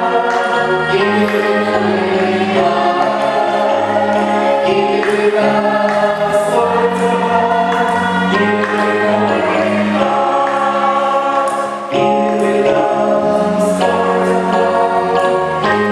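Church congregation singing an offering song together, held chords that change every second or two.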